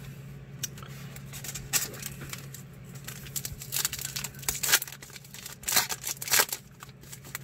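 Wrapper of a Donruss Optic trading-card pack being torn open and crinkled by hand, in irregular crackles.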